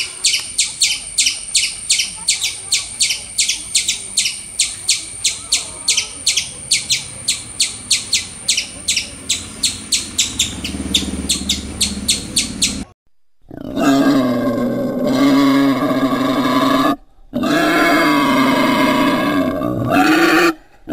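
Eurasian red squirrel calling: a rapid, even series of high, sharp chirps, about three to four a second, lasting some thirteen seconds. After a short break, a wild boar gives two long, low, drawn-out grunts of about three seconds each.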